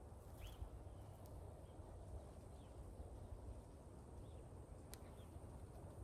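Faint outdoor ambience: a low steady rumble with a few faint, short bird chirps and a single sharp click about five seconds in.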